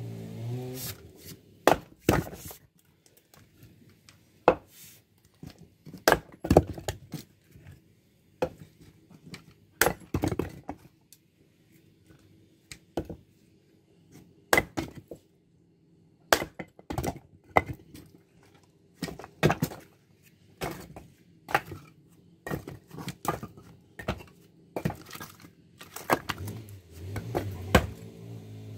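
Fiskars X17 splitting axe striking and splitting dry firewood rounds on a chopping block: a series of sharp wooden knocks and cracks, irregularly spaced, some in quick pairs.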